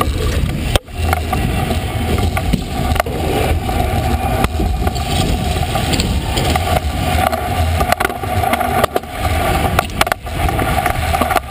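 Stunt scooter wheels rolling fast over concrete and wooden ramp surfaces, heard from on board: a steady rolling rumble and hum with frequent knocks and clatter from bumps. It drops out briefly about a second in.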